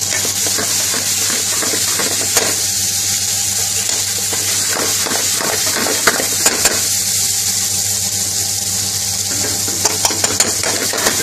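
Chicken tikka pieces, chopped peppers and onion sizzling steadily in a hot pan of oil and curry sauce as they are stirred, with sharp clicks of the stirring utensil against the pan: once about two seconds in, three times around six seconds in and a quick run near the end.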